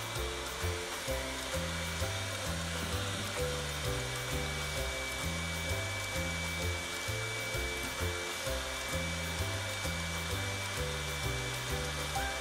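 Electric hand mixer running steadily, its beaters whisking egg yolks and sugar in a glass bowl: a constant motor whir with a steady high whine. Background music with a bass line plays alongside.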